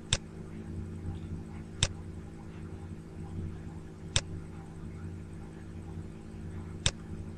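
Four single computer mouse clicks, a couple of seconds apart, over a steady low electrical hum.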